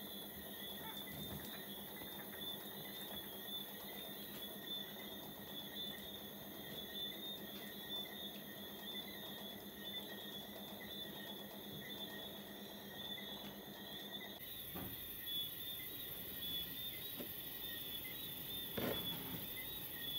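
Night insects chirping steadily in a high, continuous trill, with a low hum under it that stops about two-thirds of the way through. A few soft knocks come near the end.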